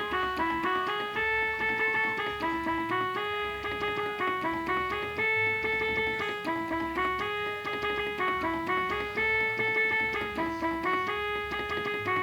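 Electronic keyboard playing a solo melody: a phrase of held notes stepping up and down, repeated several times.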